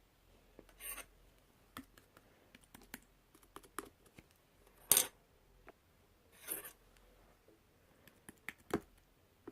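Slime being handled, making irregular small clicks and pops with a few longer crackling pops, the loudest about five seconds in.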